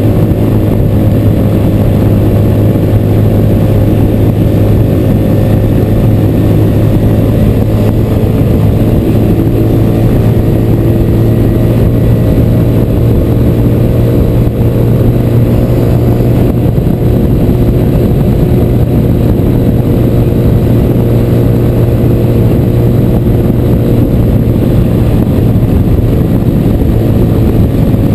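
Motorcycle engine running steadily at cruising speed, a constant hum with no gear changes, mixed with a low rush of wind on the bike-mounted microphone.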